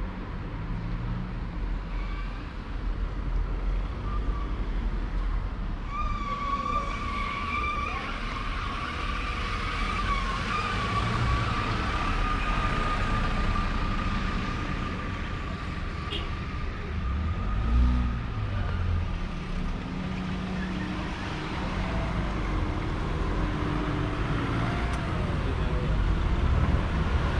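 Town street ambience: a steady low rumble of traffic. From about six seconds in, a high, slightly wavering tone is held for about ten seconds, like a distant siren, and a vehicle passes with a brief swell at around eighteen seconds.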